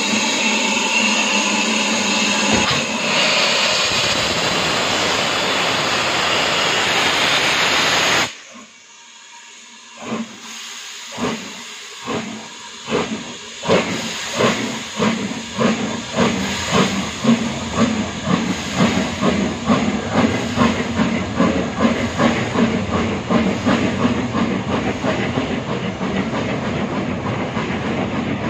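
Heritage steam train hissing steadily as its maroon coaches pass, the hiss cutting off abruptly about eight seconds in. Then the wheels click over the rail joints, slow at first and quickening into a steady clickety-clack as the train speeds up.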